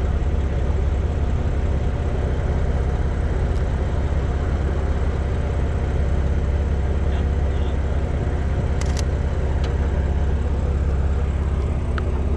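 A car engine idling steadily, a constant low hum. A few short, sharp clicks come about nine seconds in and again near the end.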